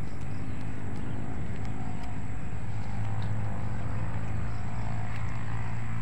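A steady low engine drone, an engine running at an even speed without change.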